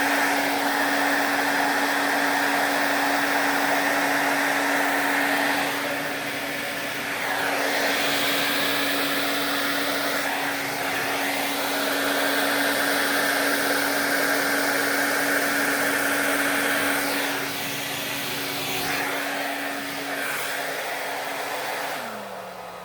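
Hair dryer running on its cool setting, blowing air across wet pour paint: a steady motor hum under a rush of air that dips and swells a few times. Just before the end it is switched off and winds down, its hum falling in pitch.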